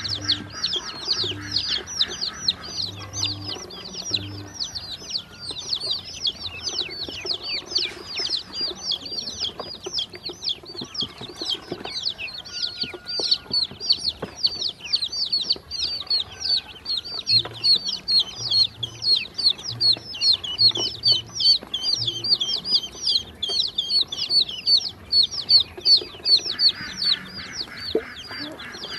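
A group of baby chicks and ducklings peeping constantly: many high, quick, falling peeps overlapping, several a second. Scattered light taps come from beaks pecking feed in a steel bowl.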